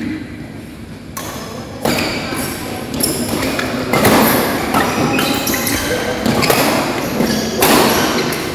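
Badminton rally: rackets striking the shuttlecock in a string of sharp hits roughly a second apart.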